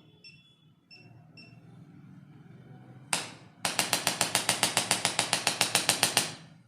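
Chiropractic adjusting device: a few short electronic beeps, then a single sharp click, then a rapid train of about twenty sharp clicks, roughly eight a second, for about two and a half seconds.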